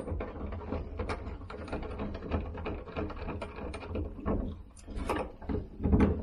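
Irregular clicks, knocks and rattles of hands working a Carbest window's plastic screen-and-blind frame into place and starting its screws, over a low rumble.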